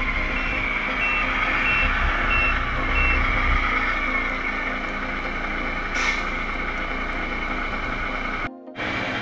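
Electronic sound unit of a Tamiya 1/14 King Hauler RC truck playing a reversing beeper, about six short beeps over the first three seconds, over a steady simulated diesel engine sound as the truck backs up. A short hiss comes about six seconds in.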